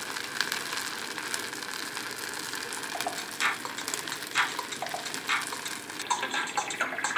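Rice sizzling and crackling in the hot oil at the bottom of a caldero once its cooking water has dried off. A few light knocks come as the lid is set on the pot, after which the sizzle sounds duller.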